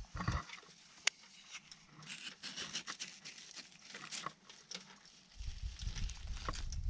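Serrated folding-knife blade scratching and picking at rock around a fossil pine cone to pry it loose: a run of small, irregular scrapes and clicks. About five seconds in, a low rumble sets in and grows.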